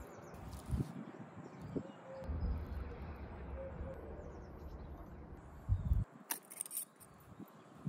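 Outdoor ambience with a low rumble and faint bird chirps. About six seconds in, a sharp click of the wire clasp on a glass swing-top spice jar being flipped open.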